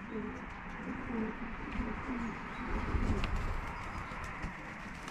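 Racing pigeons cooing at the loft: many short, overlapping coos, over a low rumble that swells about halfway through.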